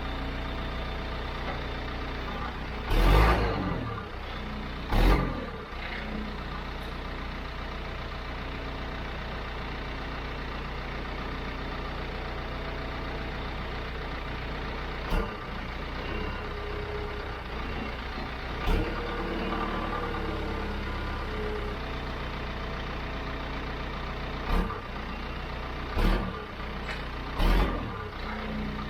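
John Deere 310 backhoe's diesel engine idling steadily, broken by about seven short, loud thumps, the two loudest in the first few seconds, while wires are bumped to test whether the transmission will engage forward.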